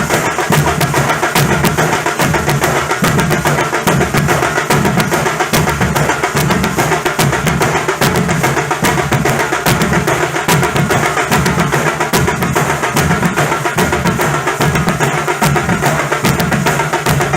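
Nasik dhol ensemble, big dhol drums and sharp tasha drums, playing a fast, loud, driving rhythm.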